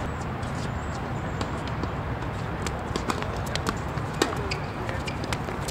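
Tennis court ambience: a steady low background hum with scattered sharp taps and clicks, about one or two a second at irregular spacing.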